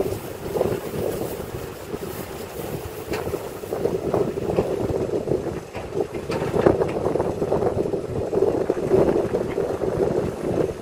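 Sumitomo SH210 hydraulic excavator's diesel engine running under load, its drone rising and falling as the machine dumps a bucket of soil into a dump truck and lifts its boom back up.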